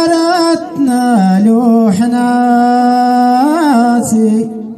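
A man singing solo and unaccompanied in Amazigh tanddamt sung poetry: a long wavering note, then a lower note held for about two seconds with a small ornament near its end, and the voice stops about four seconds in.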